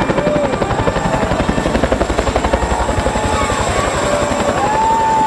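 Boeing CH-47 Chinook's tandem rotors beating in a rapid, steady chop as the helicopter hovers low and settles onto the ground for landing.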